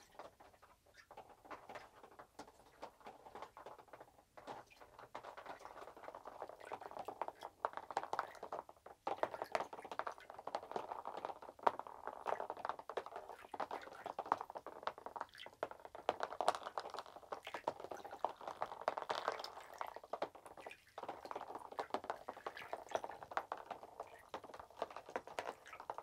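Water sloshing and lightly splashing as several HEXBUG Aquabot Wahoo robot fish swim around a plastic tub, their small tail propellers churning the surface, with many small ticks and plinks throughout.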